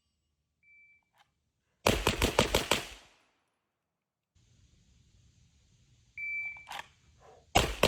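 A shot-timer start beep, then a fast string of about six pistol shots from a 2011 pistol: a bill drill. Near the end a second timer beep is followed by more shots.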